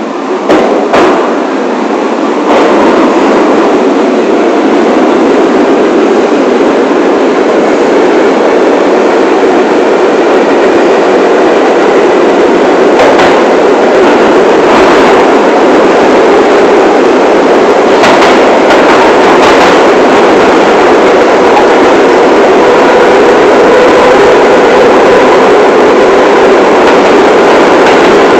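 New York City subway train running along the track: a loud, steady rushing rumble that grows over the first few seconds and then holds, with a few short clunks from the wheels and rails.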